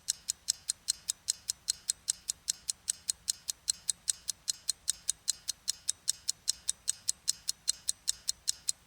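Clock-ticking sound effect of a quiz countdown timer: sharp, even ticks, about four a second, counting down the answer time.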